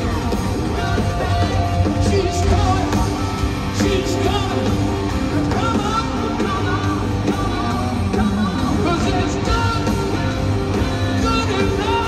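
Live rock band playing loud and steady, with a male lead singer singing and yelling over the drums and instruments, heard from within the audience.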